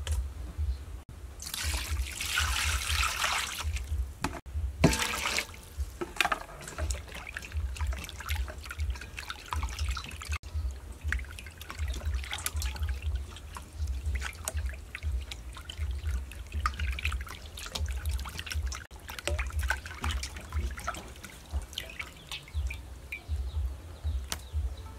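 Water splashing and sloshing in a stainless steel bowl as raw pork is washed and rubbed by hand, with a rush of pouring water about two seconds in and a sharp splash soon after, over a low fluttering rumble.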